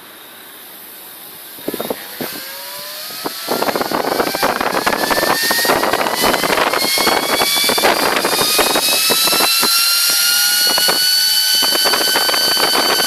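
Delta PFR0812XHE high-speed brushless DC fan spinning up on 12 V. A loud rush of air with a whine that rises in pitch for several seconds, then levels off at full speed, with irregular crackles throughout.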